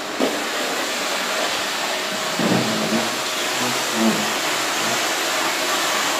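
Vacuum cleaner running steadily as the floor is vacuumed, with a couple of soft bumps from the wand about two and a half and four seconds in.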